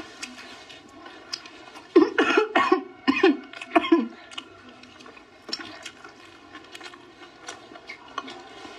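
A person coughing about five times in quick succession, starting about two seconds in. Fainter clicks of chewing and chopsticks come before and after.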